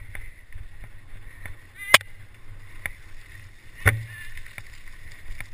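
Mountain bike rolling fast over a rough dirt trail: a steady rumble of tyres on the ground, with sharp knocks from bumps about two seconds in and again near four seconds.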